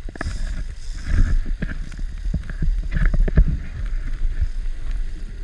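Wind rumbling on the microphone over a boat on open water, with scattered knocks and thumps from the deck and gear.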